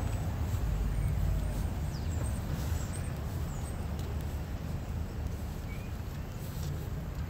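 City street ambience: a steady low rumble of traffic, with a few faint, short bird chirps above it.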